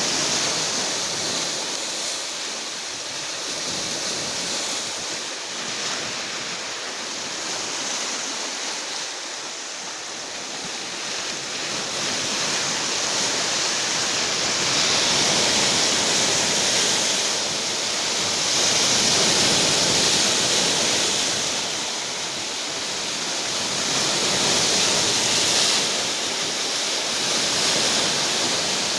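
Rough sea surf: a continuous rush of breaking waves that swells louder every few seconds as bigger breakers come in.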